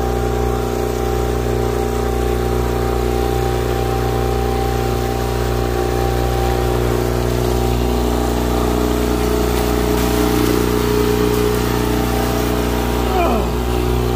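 Mercury outboard motor running steadily at trolling speed, an even drone with no change in pitch. Near the end a short tone falls in pitch.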